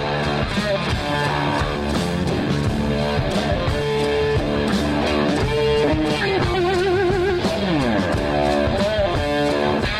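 Fuzz-distorted electric guitar playing a psychedelic rock lead in a band recording. About seven seconds in, a held note shakes with wide vibrato, then a note bends downward.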